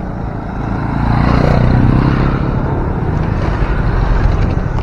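Motorcycles passing close by on the road, their engines swelling about a second in, over a steady rumble of wind on the microphone of a moving bicycle.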